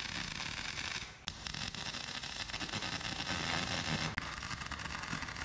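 Wire-feed welder tack-welding steel tubing: the steady crackling hiss of the arc, which breaks off briefly about a second in between tacks.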